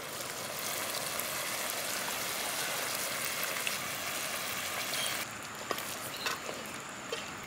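Tamarind extract squeezed by hand, dripping and splashing into a pot of simmering curry: a steady hiss that drops about five seconds in. A few light knocks follow as a wooden spoon stirs the aluminium pot.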